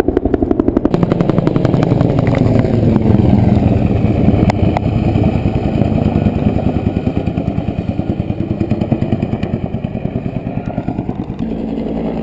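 Loud, fast, even pulsing of a nearby engine or rotor, building to its loudest about three seconds in and then slowly easing off.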